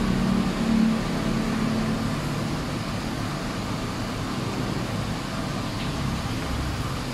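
Steady background rumble and hiss, with a low droning hum in the first two seconds.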